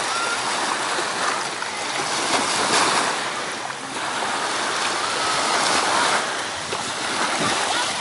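Small waves washing and breaking onto a sandy beach in the shallows.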